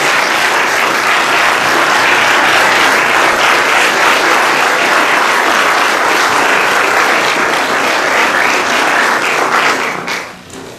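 A roomful of people applauding steadily, many hands clapping at once; the applause dies away near the end.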